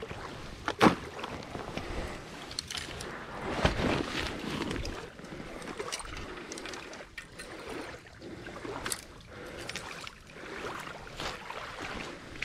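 Small waves lapping at a lakeshore, with wind on the microphone. Irregular knocks and rustles from handling a fishing rod and reel break through it, the loudest a sharp knock about a second in.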